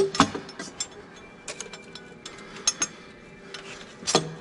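Irregular sharp metallic clicks and clinks, a fraction of a second to about a second apart, from a hand tool and bolts being worked at a diesel engine's exhaust manifold while it is fitted.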